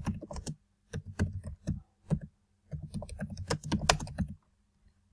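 Typing on a computer keyboard: quick keystrokes in short bursts, stopping about four seconds in.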